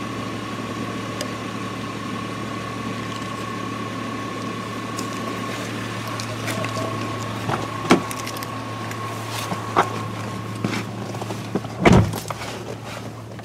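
Car idling with a steady low hum and a steady high whine that stops about ten seconds in. A few clicks come in the second half, then a loud thump about twelve seconds in, after which the sound turns quieter.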